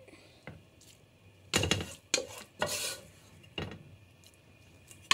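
A wooden spatula scrapes and knocks against a speckled granite-coated pan in about six irregular strokes as meat korma is stirred into thick haleem.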